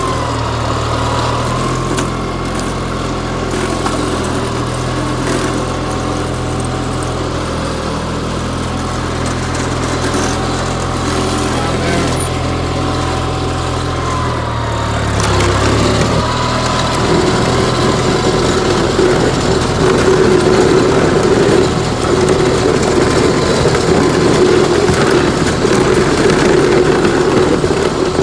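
Garden tractor engine running steadily under load while plowing snow. About halfway through its pitch dips briefly, then it runs louder and rougher.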